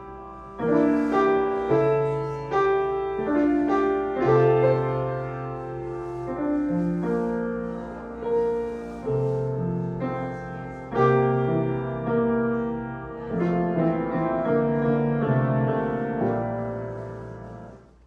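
Chickering & Sons baby grand piano played, a slow piece of struck, sustained chords and melody notes. The tuner hears a rattle in this playthrough, which may come from the action or from an object lost on the soundboard. The last chord dies away near the end.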